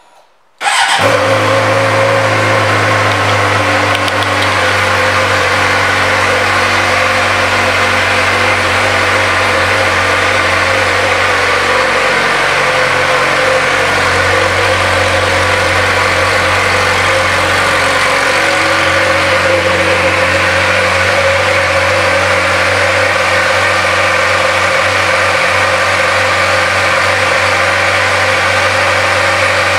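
2009 Suzuki GSX-R 600 inline-four engine idling steadily through its aftermarket exhaust. The sound comes in abruptly just under a second in and holds an even idle after that.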